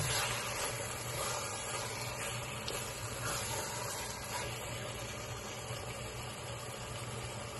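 Chicken, onion and spice mixture sizzling with a steady hiss in a stainless steel pot as it is stirred with a wooden spatula, over a steady low hum.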